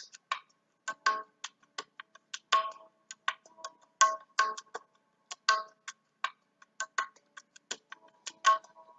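Sharp ticks at uneven intervals, about three a second, some with a short pitched ring. Near the end, soft held tones come in underneath.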